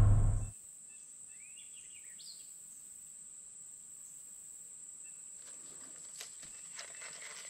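Road noise inside a moving truck cab fades out in the first half second, leaving quiet creekside woods: a steady high insect drone, a few bird chirps about two seconds in, and faint clicks and rustles near the end.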